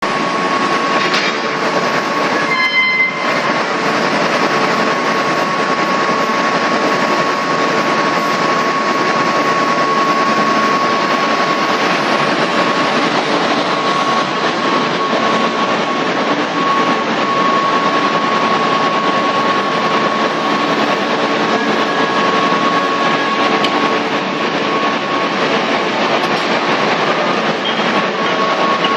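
Gas burner and combustion-air blower of a ladle preheating station running: a steady rushing noise with a constant high whine. A short, higher-pitched tone sounds about three seconds in.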